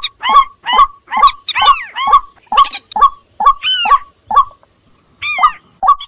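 Bird-lure recording of swamp rails calling, a mix of white-breasted waterhen, moorhen and crake calls: a harsh two-part call repeated quickly, about two to three times a second, with a short pause about four and a half seconds in.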